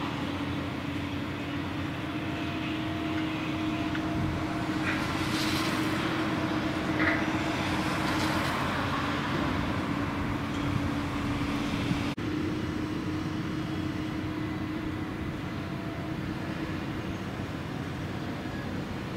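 Heavy diesel machinery running steadily with a low hum: the wheel loader pushing the unloaded sand heap and the gravel ship's grab crane at work. A few brief, louder scraping noises come about five to eight seconds in.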